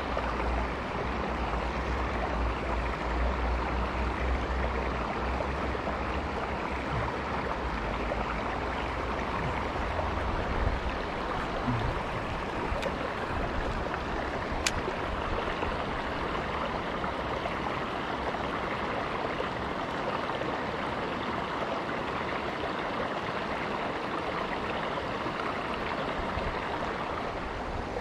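Steady rushing of a shallow rocky creek flowing over stones, with a low rumble in roughly the first ten seconds.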